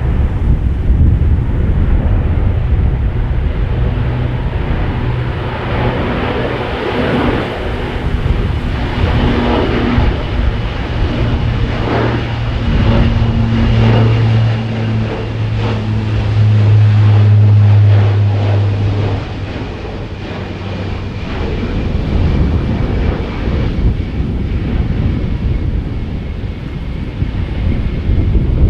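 Military four-engine turboprop aircraft running, its propellers giving a steady low drone that swells to its loudest about two-thirds through, with a faint high turbine whine above it. Wind buffets the microphone throughout.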